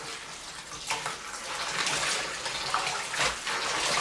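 Kitchen tap running into a stainless steel sink as bok choy is rinsed by hand, water splashing irregularly over the leaves.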